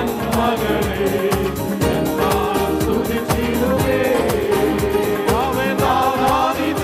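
A worship team singing a Malayalam Christian worship song, a man's lead voice with other men and women singing along, over live band accompaniment with a steady beat.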